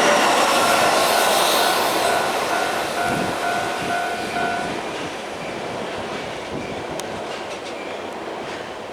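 Keihan electric train running past a level crossing, its wheels clattering on the rails, the noise fading as it goes away. The crossing warning bell rings in a steady two-tone over the train noise and stops about halfway through. A few light clicks come near the end.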